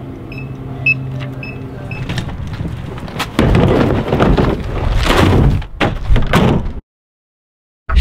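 Short high beeps repeating about twice a second over a steady hum, then a black rubber stock tank is handled into a pickup bed: loud thumps and scraping against the bed. The sound cuts off suddenly for about a second near the end.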